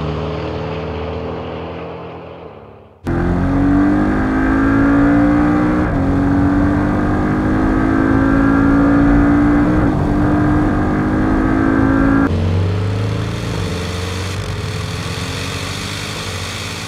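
Porsche 718 Cayman GTS's turbocharged flat-four engine: first the car pulling away and fading, then a sudden cut about three seconds in to a loud engine note under hard acceleration, the revs climbing, with brief breaks in the note about six and ten seconds in. About twelve seconds in it changes abruptly to a lower, steadier engine note at speed.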